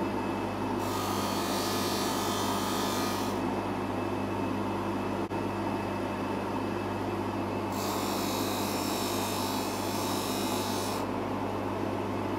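Bench polishing motor running with a steady hum while a watch case is pressed against its spinning stitched mop, giving a rasping hiss twice, for two to three seconds each time, as the scratches are buffed out of the curved case.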